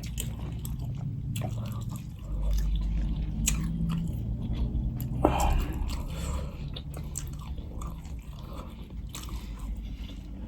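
A person chewing and eating close to the microphone, with repeated short, wet mouth clicks and smacks.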